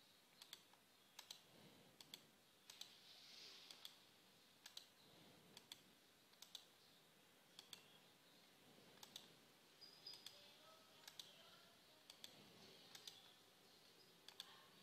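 Faint computer mouse clicks at an irregular pace as columns are right-clicked and removed one after another, over quiet room tone.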